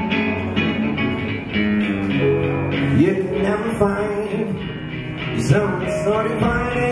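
Live band music led by a nylon-string electro-acoustic guitar, with congas and a drum kit behind it, and a man singing over it.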